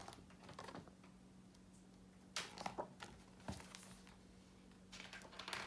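Faint rustles and soft taps of a hardcover picture book being lowered and its pages handled, a few scattered times, over a steady low hum.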